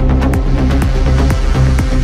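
Electronic dance music with a steady, fast drum beat and heavy bass.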